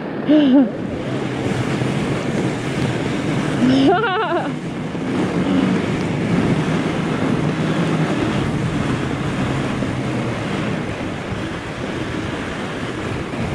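Fat bike rolling fast down a packed-snow trail: a steady rush of wide tyres on snow and wind buffeting the handlebar camera's microphone. A short vocal exclamation comes about half a second in and another around four seconds in.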